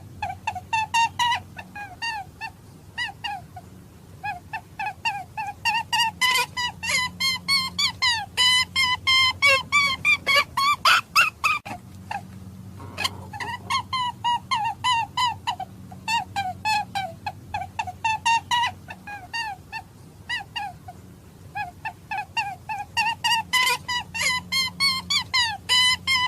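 Hare calling: a long series of short pitched calls, several a second, in runs broken by brief pauses.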